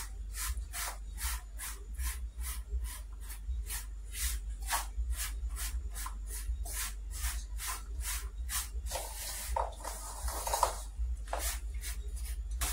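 Wooden spoon stirring a dry mix of flour and grated coconut in a metal bowl: rhythmic scraping strokes, about three a second, with a steady low hum underneath.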